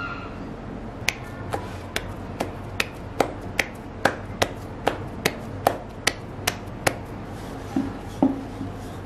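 Stuffed paratha dough slapped back and forth between the palms, two or three sharp slaps a second. Near the end come two duller knocks as the rolling pin is set down on the wooden board.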